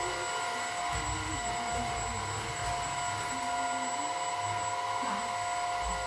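Maircle S3-Mate cordless stick vacuum running steadily, a constant motor whine with a high whistle above it, as its floor brush is pushed across the floor.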